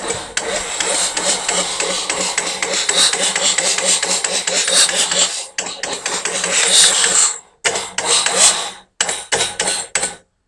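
6.9 litre V8 diesel engine turned over by its starter motor, a steady rhythmic cranking with no firing. It stops abruptly about five seconds in, then cranks again in several shorter bursts near the end. The engine is being cranked to purge air and draw fuel through the opened fuel lines.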